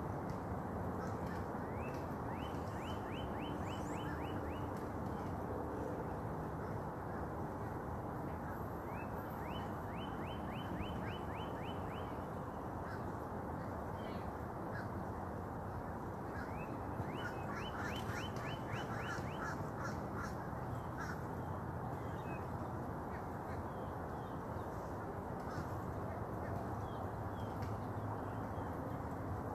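Birds calling: three runs of quick, short, rising notes, each run of about eight to ten notes, over a steady rushing background noise, with scattered fainter chirps.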